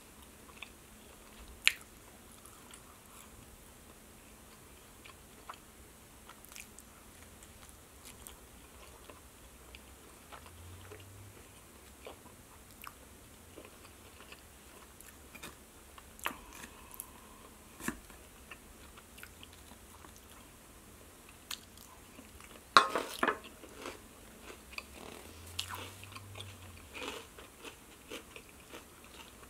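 A person chewing and biting food, with soft crunches and scattered small clicks; a louder cluster of crunching comes about 23 seconds in.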